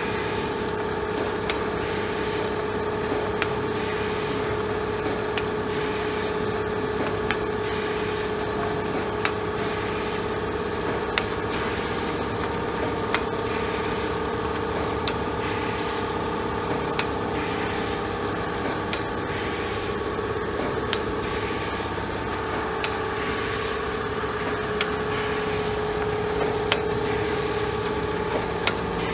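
Special Adhesive Process Machine MkIII running in steady production with a constant motor hum and a regular sharp click about every two seconds. The hum drops slightly in pitch about two-thirds of the way through.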